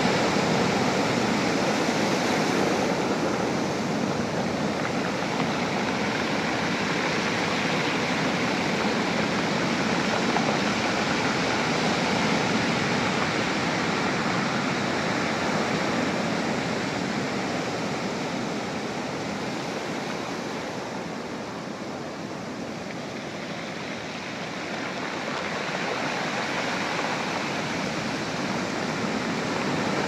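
Pacific Ocean surf breaking and washing up the beach in a steady rush of foam and water. It eases off a little about two-thirds of the way through and builds again near the end.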